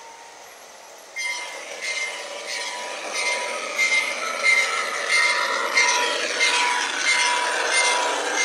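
G-scale model freight train rolling across a metal truss bridge, starting about a second in: wheels clicking at a regular pace over the track with a steady high whine underneath.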